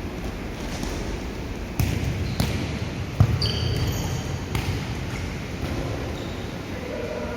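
Futsal ball being kicked and bouncing on a court, with four sharp thuds between about two and five seconds in, the loudest near the middle. Short high squeaks follow it.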